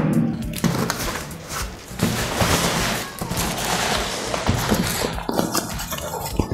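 Corrugated cardboard box being cut open with a knife and its flaps pulled apart and torn: a sharp snap right at the start, then a run of crackling, rustling and ripping cardboard with small knocks.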